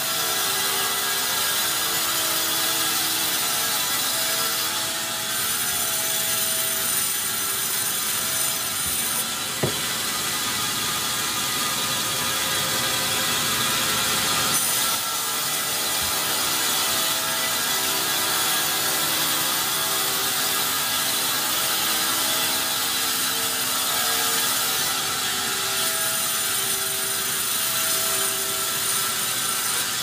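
Vertical band saw cutting through a large, hard pine log as the log is fed past the blade: a steady dense hiss of the blade in the wood, with short humming tones from the machinery coming and going and a single sharp click about ten seconds in.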